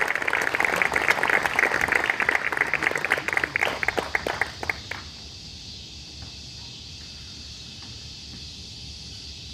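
Audience applause, dense at first, thinning out and dying away about five seconds in, leaving only a steady high hiss.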